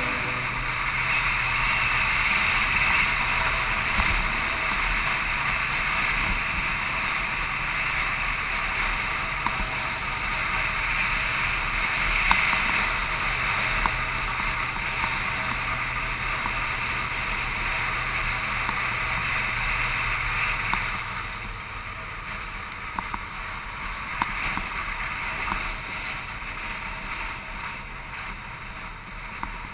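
Cruiser motorcycle running steadily along a road, its engine a low hum under loud rushing wind noise. About two-thirds of the way through, the sound drops noticeably in level.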